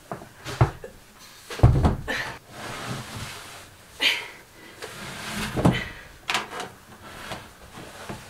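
Heavy 12-volt 200 amp-hour battery being set down and shifted into place on a plywood floor: a series of dull thumps and knocks, the loudest thud a little under two seconds in.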